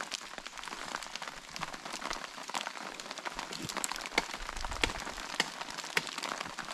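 Rain pattering steadily on a tarp and the leaf litter, with scattered sharp clicks and snaps of dry twigs being handled.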